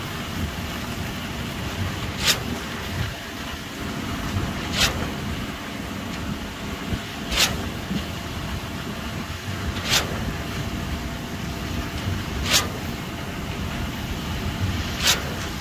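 Truck-mounted concrete pump at work: the diesel engine runs with a steady rumble, and six times, about every two and a half seconds, there is a short sharp clack-hiss as the pumping stroke changes over.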